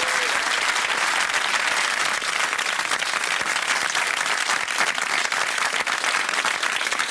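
Studio audience applauding: a dense, steady patter of many hands clapping that thins a little near the end.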